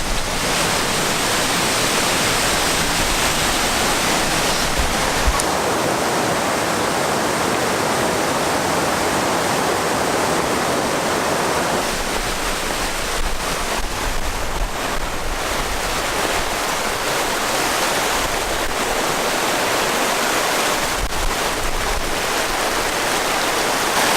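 Waterfall's steady rushing roar of falling water, unchanging throughout.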